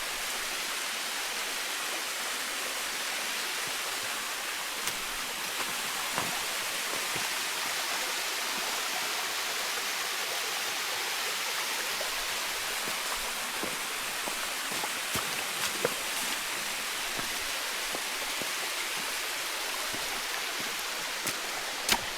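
Steady rush of fast-flowing creek water, an even hiss with no change. A few faint clicks, the sharpest near the end.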